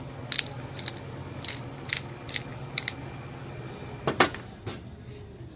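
Black pepper grinder being twisted, a series of short rasping grinds, about eight in all, with a louder knock about four seconds in.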